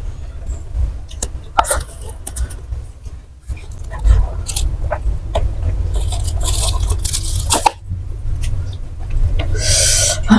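Close-miked chewing of crunchy fried snacks, with bursts of crisp crunching: a short one about four and a half seconds in, a longer run from about six to nearly eight seconds, and another near the end.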